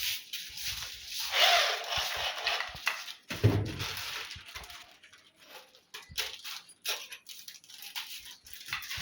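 Handling noises as a door hinge is fitted into the mortise cut in a door: a rough scraping rustle for the first few seconds, a knock about three and a half seconds in, then scattered light clicks and taps.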